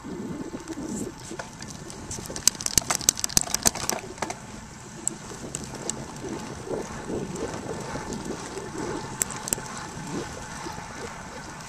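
Wind and rolling noise from a moving bicycle, heard through a camcorder, with a quick run of sharp ticks lasting about a second and a half starting about two seconds in, and a few single ticks later.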